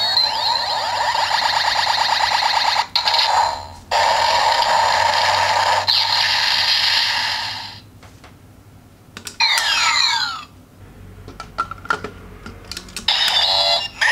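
Electronic sound effects from a Kamen Rider W CSM toy's small speaker: a dense warbling electronic tune for about eight seconds with two short breaks. About nine and a half seconds in comes a second of sweeping, gliding tones, then a few faint clicks, and the electronic sound starts again near the end.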